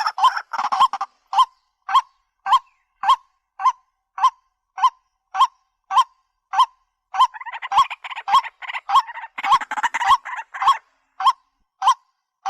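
A bird repeating a short honking call about twice a second in an even, steady rhythm. Between about seven and ten seconds in, more rapid overlapping calls join the regular ones.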